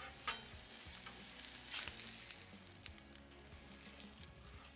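Steak and butter sizzling on the hot steel top of a Blackstone griddle, a steady frying hiss, with a few sharp scrapes and taps of a metal spatula against the griddle. The sizzle eases off a little in the second half.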